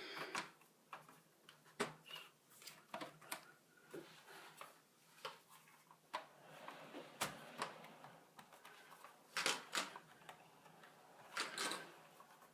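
Laptop parts being handled and fitted by hand: faint, irregular light clicks and taps of plastic and metal pieces, a few louder knocks among them.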